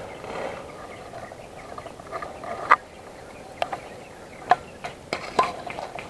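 Tall grass rustling and brushing against the camera as the wearer moves through it, with several sharp clicks or snaps between about two and a half and five and a half seconds in.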